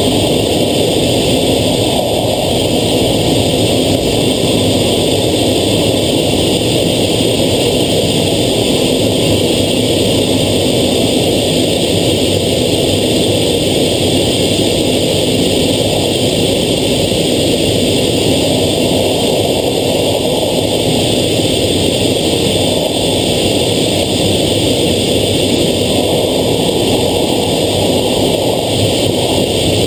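Steady jet engine and airflow noise heard inside a navy jet fighter's cockpit, holding an even level throughout.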